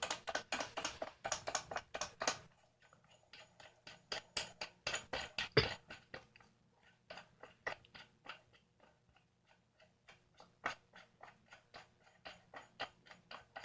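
Vice grips and a threaded scooter headset being worked loose: a quick run of light metal clicks, about four a second, then sparser and fainter clicks as the headset is unscrewed.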